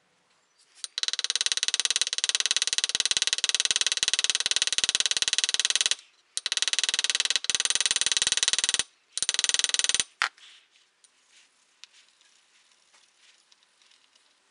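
Small hammer tapping rapidly on the pivot pin of a brass cartridge-case folding knife, peening the pin head over: three runs of quick metallic taps, the first about five seconds long, with a ringing tone. Faint handling noise follows.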